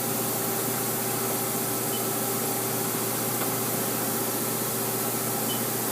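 2005 Haas SL-20T CNC lathe running with its X axis being traversed: a steady machine hum with several steady tones over an even hiss, nice and quiet.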